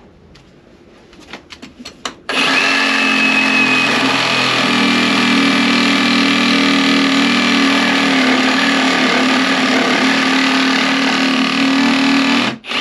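A cordless reciprocating saw cutting into an old timber frame of a wooden boat. It starts about two seconds in after a few light knocks, runs steadily at one speed for about ten seconds, then stops just before the end.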